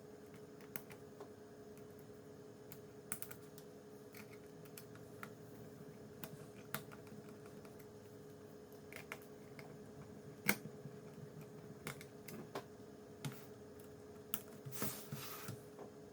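Faint, irregular clicks and taps of a small screwdriver and plastic parts as a laptop's bottom cover is refitted and its screws are put back in, with a short rustle near the end, over a steady faint hum.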